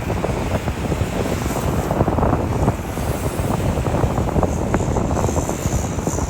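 Wind buffeting the microphone: a steady, gusty low rumble that goes on throughout.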